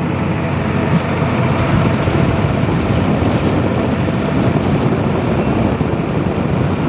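A vehicle running steadily: a loud, even, continuous rumble with no pauses or sudden events.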